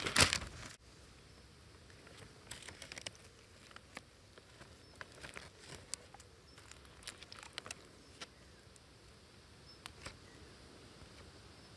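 A plastic zip-lock bag crinkles loudly for under a second, then cuts off suddenly. After that there are only faint, scattered small clicks and rustles over a quiet background.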